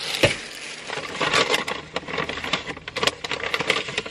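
A plastic gift bag rustling and crinkling as it is handled and opened, with a dull thump about a quarter second in.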